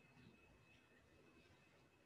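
Near silence: room tone with a faint, steady high-pitched whine.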